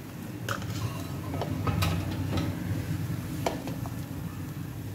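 A silicone spatula scrapes paste out of a glass and stirs it into milk in a stainless steel pot, with a few sharp taps of utensil on glass or pot, over a steady low hum.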